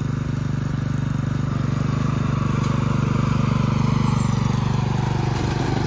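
Riding lawn mower engine running steadily as the mower drives up metal loading ramps into a pickup bed.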